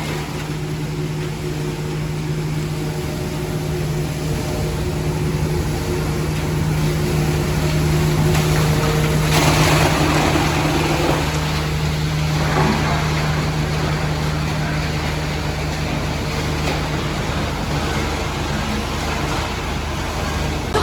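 Wood-chipping machine's engine running steadily with a low hum, with a louder rushing stretch about nine to eleven seconds in and a shorter one soon after.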